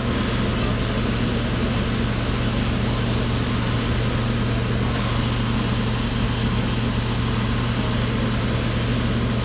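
Steady background noise: a constant low hum under an even rushing hiss, unchanging throughout.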